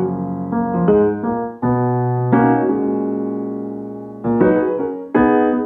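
Background piano music: slow chords struck every second or so and left to ring, fading between strikes.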